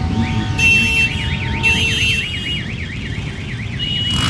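A fast electronic alarm warble, rising and falling about six times a second for roughly two seconds, over the steady low rumble of a column of motorcycle engines riding slowly past.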